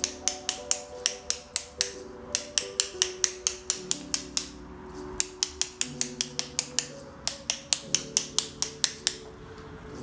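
Bristles of a paint-loaded toothbrush flicked with a pencil to spatter paint onto paper: rapid sharp clicks, about four or five a second, in runs with short pauses, stopping about nine seconds in. Soft background music plays underneath.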